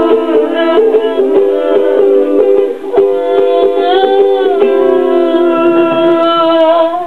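Ukulele strummed with voices singing in harmony. The strumming thins out after about three seconds and the song closes on a long held note.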